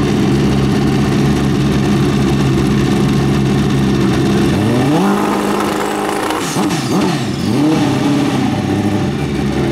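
Pro Street drag-racing motorcycle engines running at a loud, steady idle; about five seconds in, one is revved up and held at a higher speed, then blipped up and down a few times before dropping back to idle.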